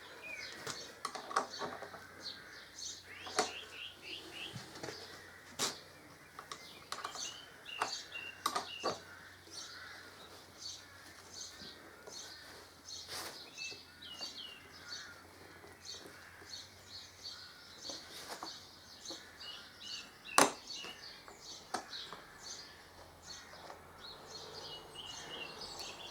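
Small birds chirping and twittering continually, with a few sharp clicks and knocks of metal parts and tools being handled while windscreen mounting plates are bolted on; the loudest knock comes about twenty seconds in.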